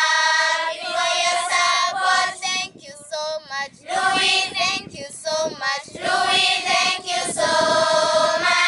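A group of children singing together in unison, with several long held notes and short breaks between phrases.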